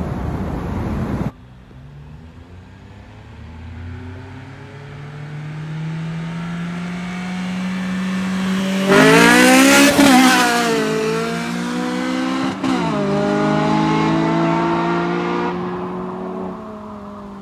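Cars accelerating hard in a street race, engine note climbing through the gears. It grows loudest around the middle, dips at gear changes there and a few seconds later, then fades. It opens with a louder, different noise that cuts off abruptly about a second in.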